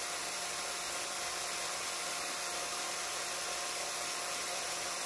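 Cordless battery drill running steadily at slow speed, a constant motor whine, twisting a pair of wires clamped in its chuck into a neat twisted pair.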